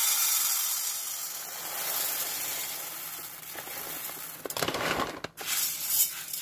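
Dry popcorn kernels pouring from a bag into an aluminium pressure cooker: a continuous rattling hiss of grains hitting the metal pot and each other, fading out about four and a half seconds in. Near the end a hand rakes through the kernels with a brief, broken rustle.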